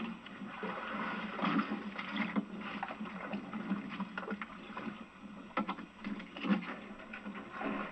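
Hand oyster tongs worked over the side of a workboat: irregular knocks and clatter of the wooden shafts and metal heads against the boat and the catch, over steady background noise.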